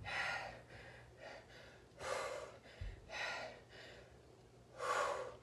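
A woman breathing hard after intense cardio, catching her breath with deep, audible breaths about once a second. A faint low thump comes about halfway through.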